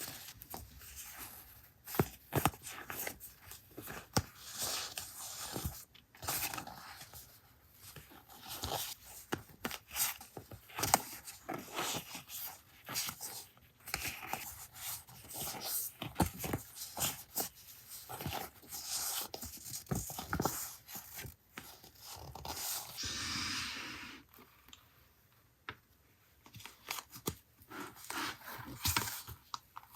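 Paper being handled at a desk: irregular rustling, sliding and tearing with light taps and clicks, including a longer scratchy stretch about two-thirds of the way in and a brief pause after it.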